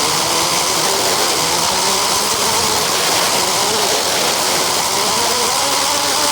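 Radio-controlled car driving: a motor whine that rises and falls with the throttle over a steady rush of tyre and wind noise.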